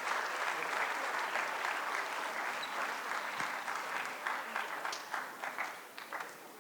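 Audience applause dying away, thinning to a few scattered claps near the end.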